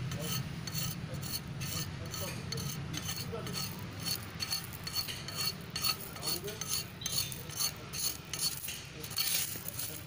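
Small metal spoon stirring and scraping through benzene-washed stone aggregate in the metal bowl of a bitumen extraction centrifuge, the stones clinking and grating in many short strokes, over a low steady hum.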